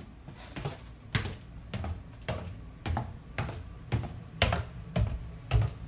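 Footsteps going down a staircase, an even thud about twice a second.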